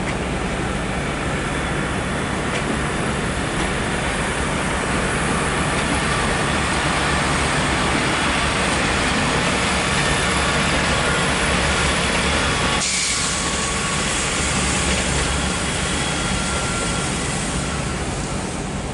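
Diesel multiple unit running on the station lines, a steady engine rumble with faint tones above it. About thirteen seconds in, the sound changes abruptly and turns brighter and hissier.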